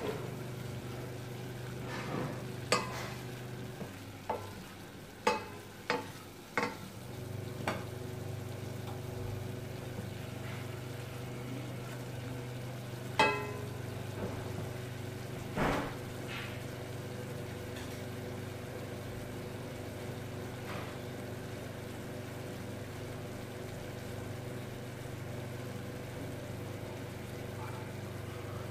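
Wooden spoon stirring seafood and celery in a stainless steel saucepan, with a few sharp knocks and clinks of the spoon against the pot in the first half, one of them ringing briefly. Under it runs a light cooking sizzle and the steady hum of the induction hob, which drops out for a few seconds early on and then returns.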